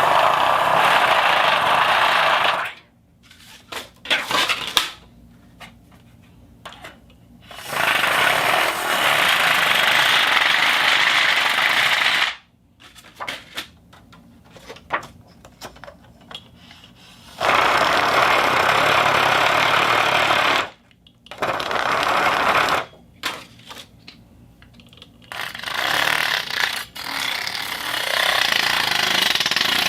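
A fishing reel making a rapid ratcheting whir in four long bursts of a few seconds each, with scattered small clicks and handling noises in the pauses between.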